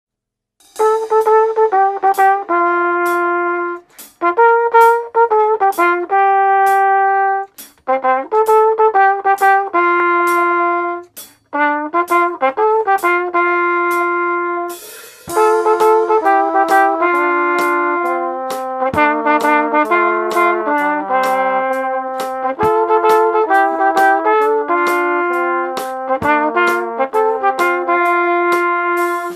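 A trumpet plays a melody in short phrases over a drum kit keeping a steady beat of sharp stick and cymbal hits. About halfway in, a second, lower brass part joins in harmony.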